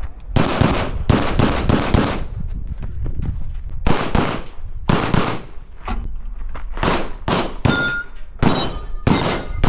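CZ Shadow 2 9mm pistol fired in quick strings of shots on an IPSC stage, each shot a sharp crack with a short echo. The strings are broken by brief pauses for moving between positions or reloading.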